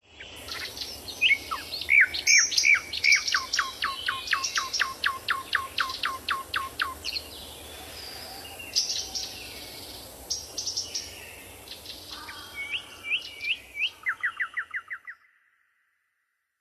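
Songbirds singing: rapid runs of short, clear notes that slide downward, several to the second, with a quicker trill near the end.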